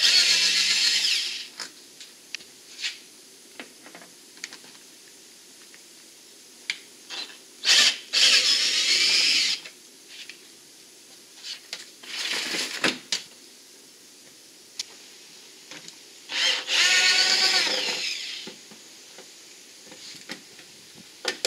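Cordless drill-driver backing screws out of an aircraft's sheet-metal lower engine cowling. It whirs in four short runs of a second or two each, with small clicks and taps from handling the screws in between.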